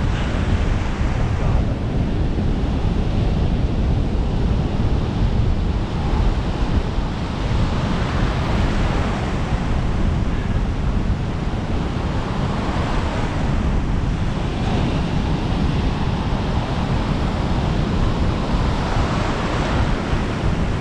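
Ocean surf breaking and washing in around the feet, a steady rush that swells with each incoming wave, with heavy wind rumble on the microphone.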